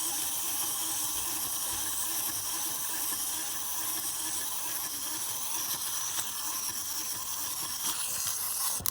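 Clockwork motors of small plastic wind-up toys whirring steadily as they run, broken off by a click near the end.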